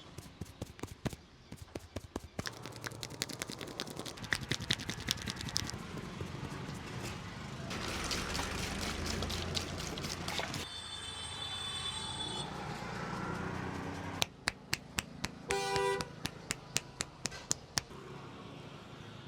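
Runs of quick, sharp hand slaps and pats on a head during an Indian head massage, over street traffic noise. A horn sounds briefly twice, once in the middle and once near the end.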